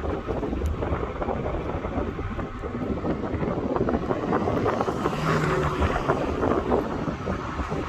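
Wind buffeting the microphone of a camera carried on a moving electric unicycle, a steady rushing noise that swells briefly about five seconds in.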